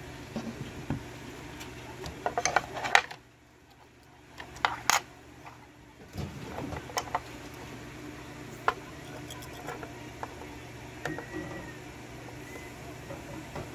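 Metallic clicks and clinks of a small pin-tumbler lock and lock-picking tools being handled and set down: a quick cluster of clicks a couple of seconds in, then scattered single clicks.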